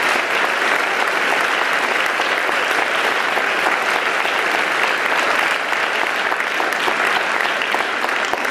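Audience applauding, a dense, steady clapping that holds at the same level throughout.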